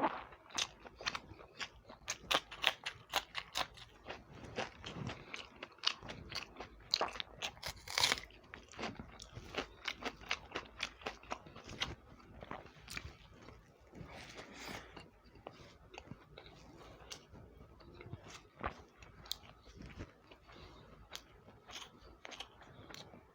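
Close-up chewing and mouth sounds of a person eating egg curry and upma: a quick run of wet clicks and smacks that thins out after about nine seconds.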